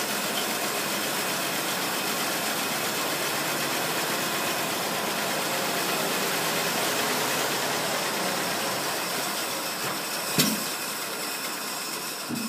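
1928 Rolls-Royce Phantom I's straight-six engine idling steadily and smoothly. A single sharp click is heard about ten seconds in.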